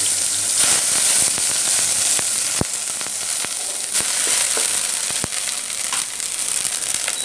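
Garlic paste and a dried red chilli sizzling in hot refined oil in a steel kadai, with a few sharp knocks as a wooden spatula stirs against the pan.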